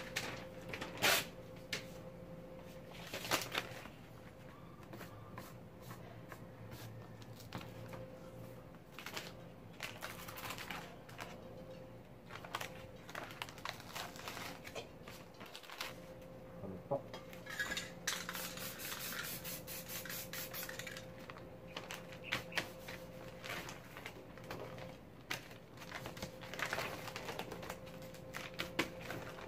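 Scattered light clicks and knocks of paper and spray cans being handled on a work table, with a spray paint can hissing for about three seconds past the middle.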